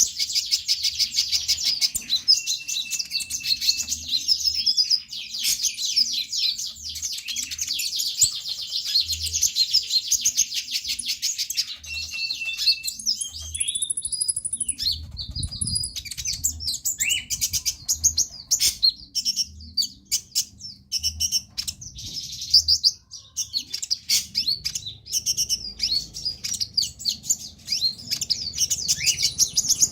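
A konin (kolibri ninja) sunbird singing a fast, high-pitched chattering song: long runs of rapid stuttering notes, the 'trotolan' style, broken by short pauses and a few clearer whistled notes about halfway through.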